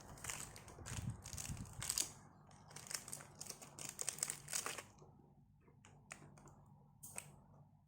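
Packaging being handled and crinkled, rustling in irregular bursts for about five seconds, then only a few light clicks and taps.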